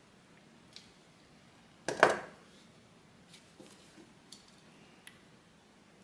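A hand plier hole punch squeezed through a strap once, about two seconds in: a short, sharp crunch that dies away quickly. A few faint clicks of the tool being handled come before and after.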